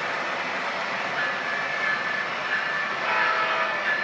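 O-gauge model diesel locomotive running on a three-rail layout: the locomotive's diesel engine sound effect and wheels rolling on the track give a steady rushing hum. A thin steady tone comes in about a second in, and several higher tones join near the end.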